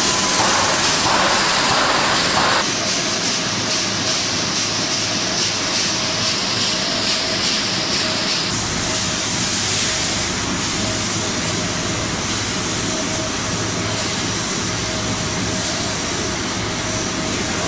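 Pet food production line machinery running: a steady, loud mechanical hiss and rumble with a constant hum. The mix shifts about halfway through, the high hiss dropping away as a deeper rumble comes in.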